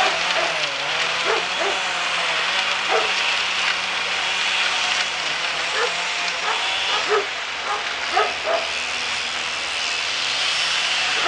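Steady running of machinery: a truck-mounted wood chipper's engine droning without a break. Over it, a dog barks in short barks several times.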